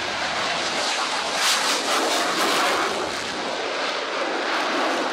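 MiG-29 fighter's twin jet engines at takeoff power during a low takeoff and climb-out: a loud, steady rushing jet roar that swells a little about a second and a half in.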